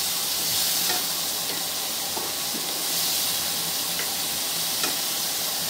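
Chopped onion with garlic and cumin paste and a little water sizzling steadily in a frying pan while a wooden spatula stirs it, with a few light taps of the spatula on the pan. The spice paste is being sautéed (kashano) for a prawn curry.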